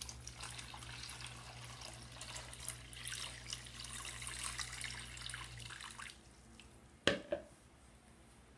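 A stream of water is poured into a plastic tub of water holding a cooked egg, splashing steadily for about six seconds and then stopping. A sharp knock follows, with a second one just after it.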